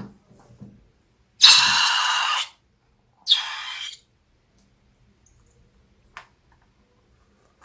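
Slime and air squirting out of a squeezed balloon's neck in two loud hissing spurts, the first about a second and a half in, the second shorter and weaker about two seconds later; a few faint clicks follow.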